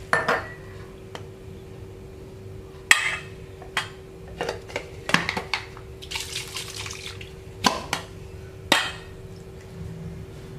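Water sloshing in a plastic blender jar and pouring out into a steel bowl of flour, with several sharp knocks of the jar and cup against the bowl and counter.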